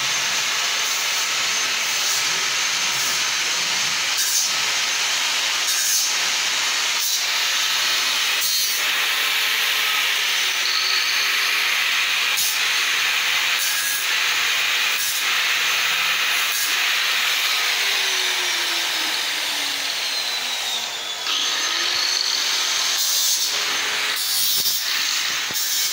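Handheld electric power tool working on sheet metal: a steady, loud grinding hiss, with a few short knocks and a brief dip about twenty seconds in.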